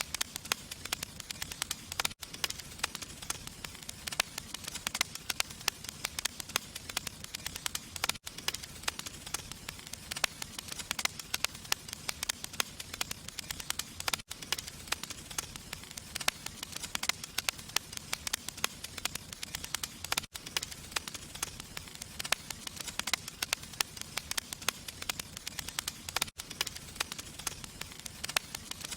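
Fire crackling and popping steadily with dense, irregular snaps, broken by a brief gap about every six seconds.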